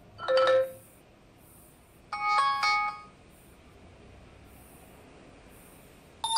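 Android volume-preview sounds from the tablet's own speaker as the volume sliders are moved: a short beep just after the start, a brief multi-note chime about two seconds in, and a louder ringing chime near the end.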